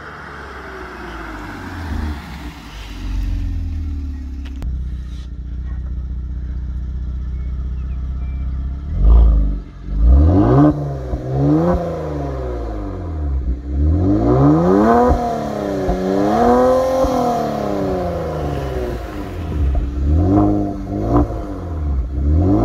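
Kia Stinger GT's twin-turbo V6 with a Bastuck aftermarket exhaust, first coming closer and settling to a steady low idle. From about halfway through, the engine is revved at standstill in a series of about ten quick rises and falls in pitch.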